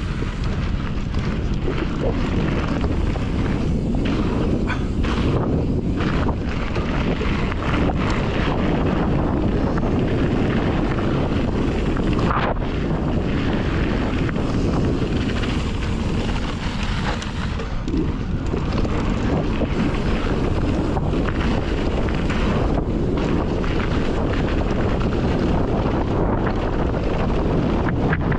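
Wind buffeting the microphone during a fast mountain bike descent, over the steady rumble of tyres rolling on a dirt trail, with occasional short knocks and rattles from the bike.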